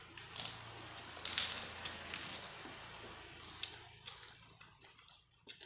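Brown paper food wrapping crinkling and rustling with small crackles as a hand scoops fried rice from it.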